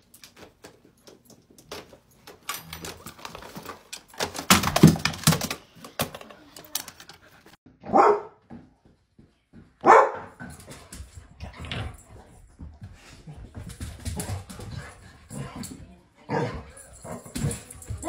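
A dog barking, with two loud short barks about eight and ten seconds in, among scattered knocks and clatter.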